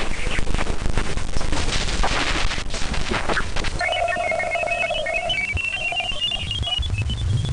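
Space plasma-wave data turned into sound. It starts as crackling static. From about four seconds in it becomes a run of short, stepped whistle-like tones climbing in pitch over a steady mid tone, and a low hum comes in near the end.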